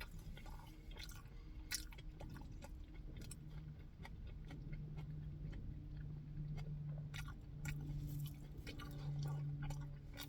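Close-miked chewing and mouth sounds of a person eating, with irregular wet clicks and smacks throughout. A low steady hum sits underneath, becoming more noticeable after about three seconds.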